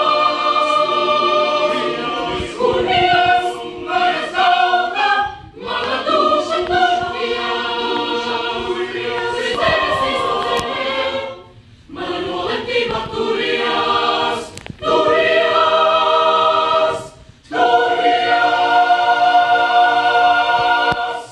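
Mixed choir singing a Latvian choral piece in full sustained chords, in phrases broken by short pauses, closing on a held final chord that cuts off at the end.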